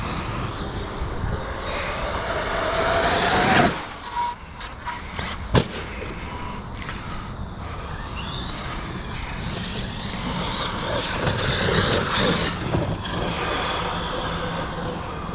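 Arma Outcast 8S RC truck's 1100kV brushless motor and drivetrain whining as it accelerates, rising in pitch for about three and a half seconds and then cutting off. A sharp knock comes about five and a half seconds in, and more motor whine follows as it runs on. The driver says he can hear the gear mesh getting tight.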